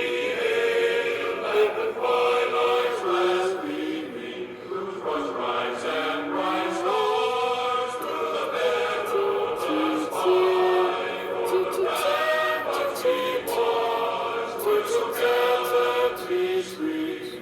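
Music with choir-like singing voices carrying a slow melody of held notes, with a few slides in pitch.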